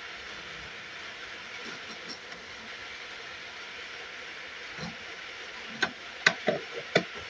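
Several short sharp knocks in the last two seconds as the lid of a black project box is handled and set down onto the box, over a steady hiss.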